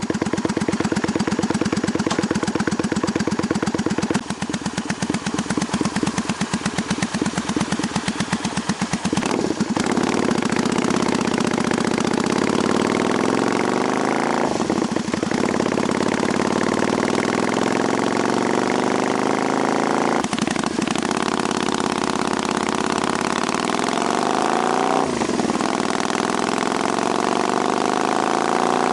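Honda Magna 250's V-twin engine idling through a slash-cut aftermarket muffler fitted with an inner silencer baffle, with steady exhaust pulses. From about ten seconds in, the engine speed wavers a little.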